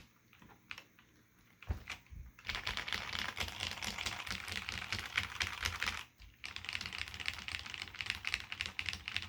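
Typing on a Desko BMOC 4013 keyboard with Cherry MX Black switches and ABS keycaps: a few scattered keystrokes, then a fast, dense run of key presses from about two and a half seconds in, a brief pause about six seconds in, then more rapid typing.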